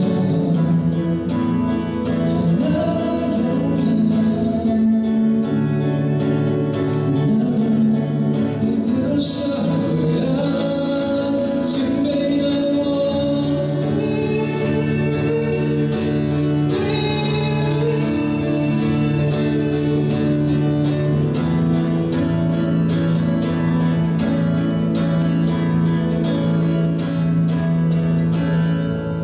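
A man singing solo, accompanying himself by strumming an acoustic guitar.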